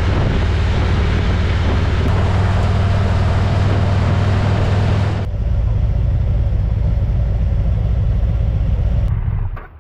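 Harley-Davidson Road King Special's V-twin engine running steadily at speed, under heavy wind and road noise. The wind noise lessens about five seconds in, and the sound drops away sharply just before the end.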